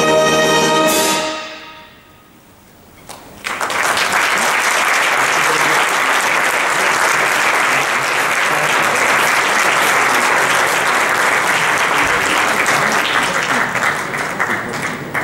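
A wind orchestra's final chord of brass and woodwinds, held and then cut off about a second in. After a short hush, the audience applauds, steady at first and thinning near the end.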